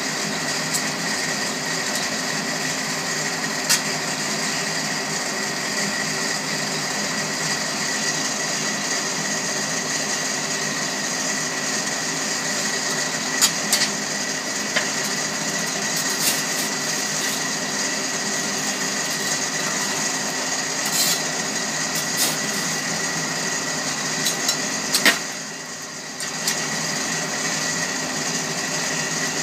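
Steady whirring hum of an electric blower built into the side of a blacksmith's forge, feeding air to the fire. A few sharp clicks and knocks sound now and then over it. The hum dips for about a second a little before the end, then comes back.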